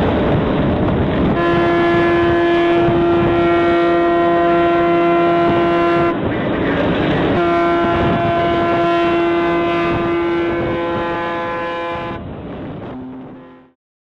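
A P&O liner's ship horn sounding two long blasts of about five seconds each, about a second apart, over steady background noise. A short lower tone follows near the end before the sound cuts off suddenly.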